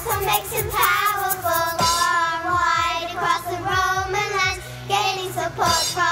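A group of children singing an upbeat pop song over a backing track with a steady beat.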